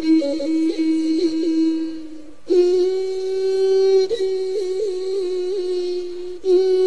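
Outro music: a long held, wordless melodic line with quick ornamental turns. It breaks off and starts a new phrase about two and a half seconds in and again near the end.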